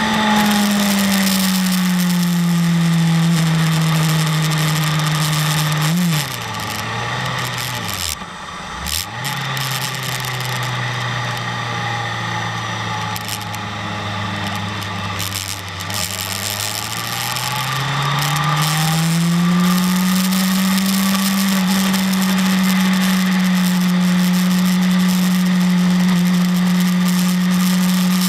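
BMW S1000RR inline-four engine heard onboard at part throttle. The revs ease down, fall away sharply about six seconds in and briefly dip very low, then hold steady at lower revs before climbing smoothly back up around the sixteen to twenty second mark and holding steady.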